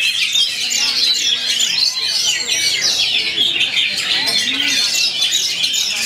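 Many caged oriental magpie-robins singing at once in competition: a dense, unbroken tangle of fast chirps, whistles and trills, with faint voices beneath.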